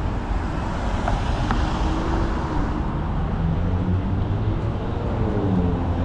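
Street traffic: a steady low rumble of passing cars, with the hiss of a vehicle going by swelling and fading in the first few seconds.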